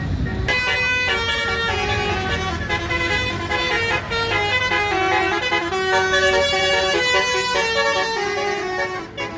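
Bus basuri horn, a multi-note air horn, playing a telolet melody: a quick run of stepped notes starting about half a second in, over a low engine rumble.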